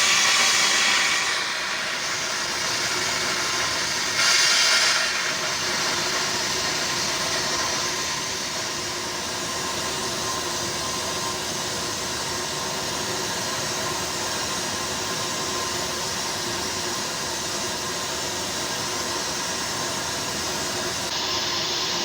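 Stick (shielded metal arc) welding arc on pipe, hissing and crackling steadily. It is briefly louder and sharper about four seconds in.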